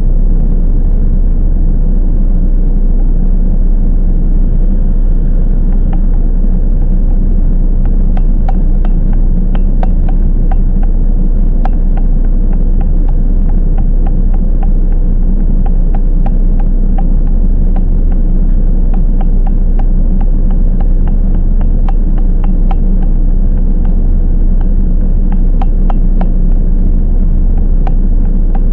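Toyama Chiho Railway 10030-series electric train running, heard from inside the car: a loud, steady low rumble, joined from about eight seconds in by a long run of sharp clicks and knocks from the wheels on the track.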